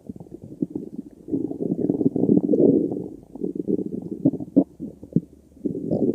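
A stomach growling: irregular gurgles and rumbles, swelling into a long, louder gurgle about a second in, dropping to soft crackling gurgles, then swelling again near the end.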